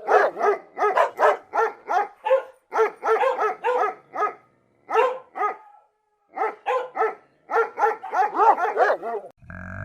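Dog barking in a fast run of short barks, about three a second, with a brief pause about six seconds in. Right at the end a cow begins to moo.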